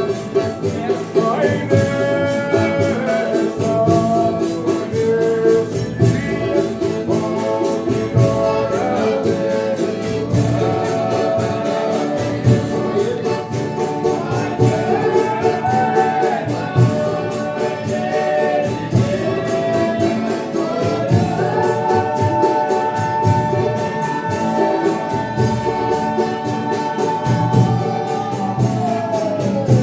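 Folia de Reis company singing a devotional thanksgiving song in several-voice harmony, accompanied by tambourine and other instruments. From about two-thirds of the way in the voices hold one long chord, which drops away near the end.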